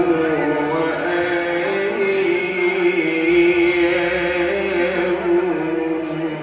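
A man singing a long, wavering melismatic line into a microphone over live Egyptian sha'bi band accompaniment.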